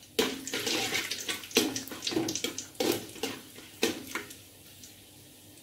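Whole spices (cinnamon stick, star anise and cardamom) sizzling in hot oil in an aluminium pot while a ladle stirs them. The ladle scrapes and knocks against the pot about four times, and the sizzle dies down after about four seconds.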